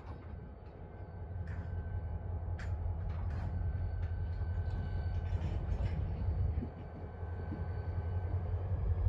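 Diesel locomotive and its freight cars rolling slowly past: a low, steady rumble that grows louder, with a few sharp clicks and knocks in the first few seconds.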